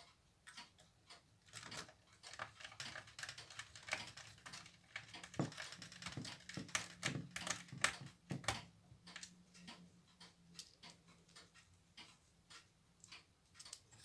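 Faint, irregular clicks and ticks of a hand screwdriver turning small screws into the plastic and metal cassette loading mechanism of a VCR, thickest in the middle.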